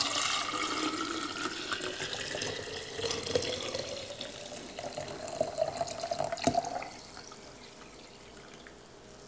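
Warm tea poured in a steady stream from a stainless steel pot into a half-gallon glass mason jar, the pitch of the pour rising as the jar fills. The pour stops about seven seconds in.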